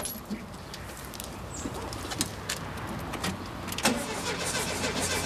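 A few sharp clicks, then from about four seconds in a car's starter cranking the engine with a steady, rapid rhythm. The engine does not catch: the car will not start despite having fuel.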